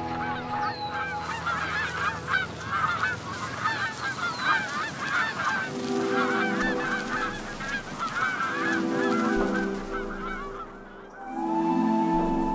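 A large flock of greylag geese honking: many short, overlapping calls that stop about two seconds before the end. Background music comes in under the calls about six seconds in and takes over near the end.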